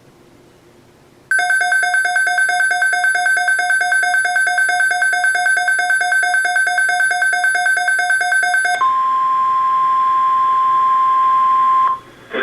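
A weather alert radio's alarm sounding: about a second in, a loud, rapidly pulsing multi-pitch beep starts and runs for about seven seconds. It then switches to a single steady tone, the 1050 Hz NOAA Weather Radio warning alarm tone, which lasts about three seconds and cuts off. Together they signal an incoming alert broadcast.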